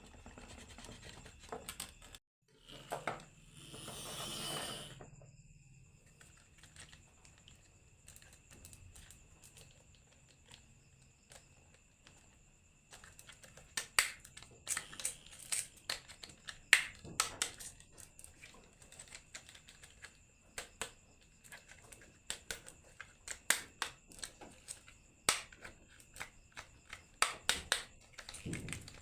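Marbles running down a wooden marble run: a brief swelling rush about three seconds in, then irregular hard clacks as they knock against the wooden track pieces, coming thick and fast in the second half.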